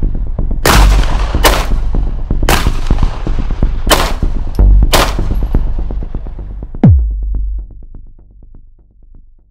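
.380 pistol fired five times at uneven intervals of about a second, over electronic background music. Near the end the music makes a deep falling sweep and then fades out.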